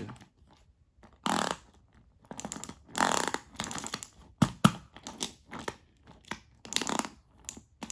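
A battery-powered plastic toy engine being handled for a test: irregular plastic scrapes and rustles, with a couple of sharp clicks about four and a half seconds in.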